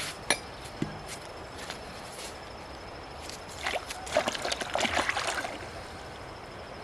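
Water trickling, with a burst of splashing and sloshing about four seconds in that lasts a second or two.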